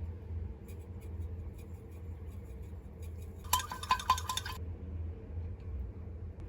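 Tableware clinking: a quick run of sharp clinks with a short ring, like a spoon or dish against ceramic or glass, a little past the middle, after a few light taps. A steady low hum runs underneath.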